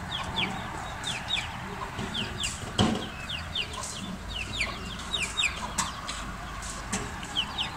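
Chicks peeping over and over, in short high cheeps that fall in pitch, over a steady hiss. A single sharp knock about three seconds in.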